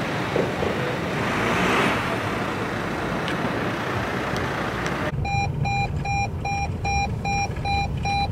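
Steady rumbling noise with hiss, then about five seconds in a sudden switch to a rhythmic electronic beeping, about three beeps a second, over a continuing low rumble.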